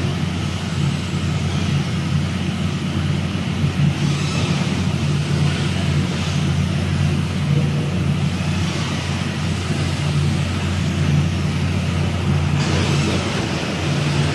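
Steady low hum of running workshop machinery, with soft scraping and crinkling now and then as a utility knife trims clear plastic film along the edge of the felt table cloth.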